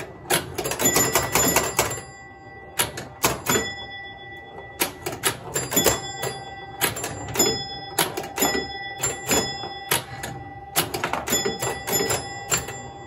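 1968 Williams Lady Luck electromechanical pinball machine in play: bursts of rapid clacks and snaps from its flippers, bumpers, relays and score reels, with bell tones ringing out and fading between them.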